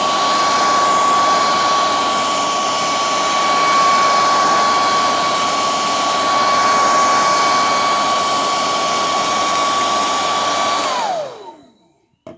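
Hair dryer running steadily with a high motor whine, blowing hot air over a car stereo's circuit board to heat it. About eleven seconds in it is switched off and the whine falls in pitch as the motor spins down.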